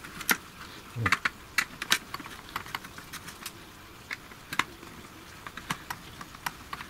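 Irregular small clicks and ticks of a screwdriver working out the screws that hold a circuit board inside a Fluke 1652 multifunction tester.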